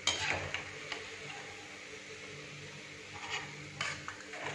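Urad dal vadas frying in hot oil in a steel kadhai, a steady sizzle. A sharp metal clink comes right at the start and a few lighter clicks follow, from a steel slotted spoon against the pan and plate.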